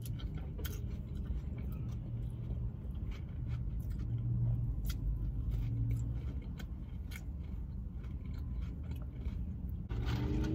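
Close-up chewing and wet mouth clicks of someone eating sauce-dipped cheese fries, over a steady low hum of the car interior.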